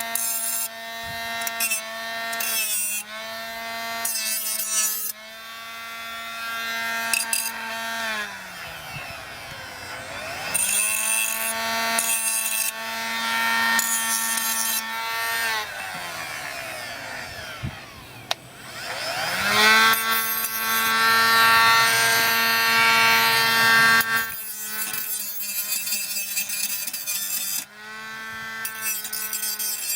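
Parkside PWSA12 B1 12-volt cordless angle grinder running with a steady whine, its disc grinding against material in stretches. It is switched off and winds down about eight seconds in and again around sixteen seconds in, starting back up each time.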